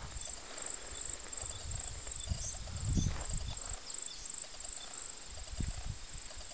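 An insect chirping in a steady high-pitched pulse about twice a second, over footsteps on a dirt track and low thumps of wind or camera handling, the loudest about three seconds in.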